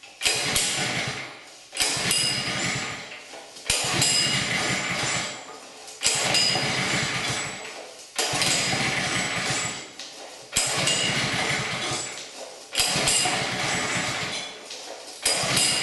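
Honda GX200 engine on a pressure washer being pull-started again and again, about every two seconds, eight times. Each pull starts sharply and runs down over a second or so without the engine keeping running, which the owner suspects is caused by a bad sensor.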